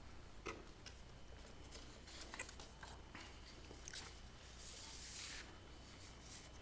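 Faint handling of paper notes: a few soft scattered clicks and a brief paper rustle about five seconds in, over a steady low room hum.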